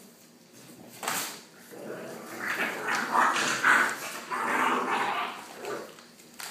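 Seven-week-old American pit bull puppies vocalizing as they play-fight. A sudden sharp cry comes about a second in, then several seconds of loud, irregular noises.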